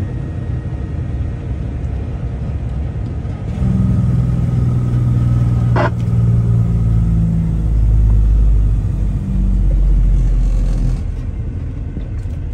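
Truck engine and road noise on the move. The engine note swells louder about three and a half seconds in, settles lower in pitch under load, and drops back near the end. There is a brief sharp click about six seconds in.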